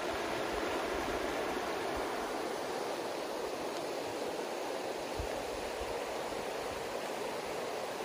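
Shallow, rocky river rushing over stones: a steady, even rush of water.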